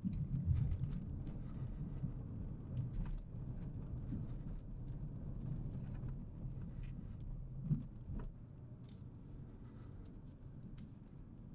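Cabin noise of a Dacia Sandero Stepway driving slowly along a rough lane: a low engine and tyre rumble with scattered small clicks and knocks. A thump comes near eight seconds, and the rumble is quieter after it.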